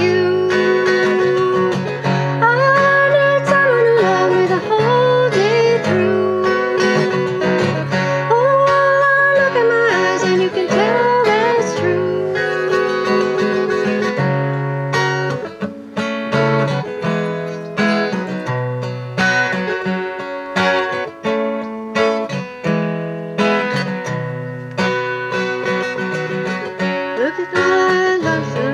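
Acoustic guitar strummed steadily, with a woman singing a wavering melody over it for roughly the first twelve seconds; after that the guitar plays on alone, with the voice coming back in near the end.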